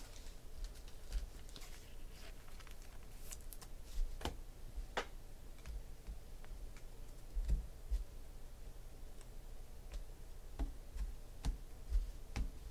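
Sparse light clicks and taps of hands working at a table, about a dozen short ones spaced unevenly, over a low steady hum.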